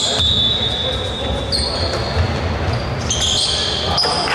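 Sounds of play on an indoor basketball court: a basketball dribbled against the hardwood floor with sneakers squeaking, echoing in a large hall, with players' voices in the background.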